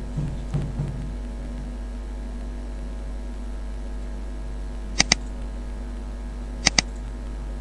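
Steady electrical mains hum on the recording, with two computer-mouse double-clicks, one about five seconds in and another near the end, opening folders.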